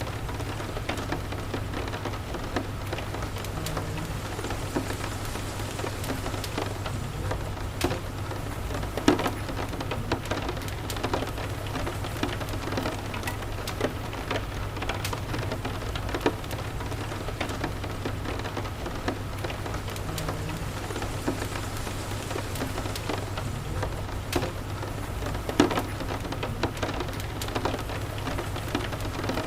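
Steady rain falling, with scattered sharp ticks and pops throughout, the loudest about nine seconds in and again near the end, over a steady low rumble.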